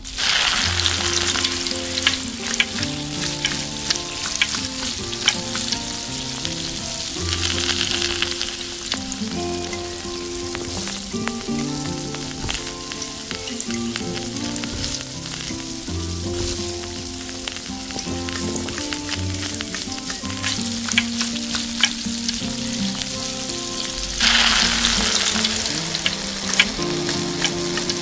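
Chopped onion and spices sizzling and frying in hot oil in a miniature steel kadai, with small clicks and scrapes of a tiny spatula stirring. The sizzle starts loudly as the onion goes in and swells again about seven seconds in and near the end.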